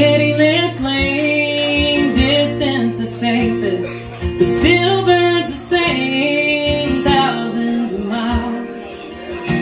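Live music: a woman singing into a microphone with long held notes, accompanying herself on acoustic guitar.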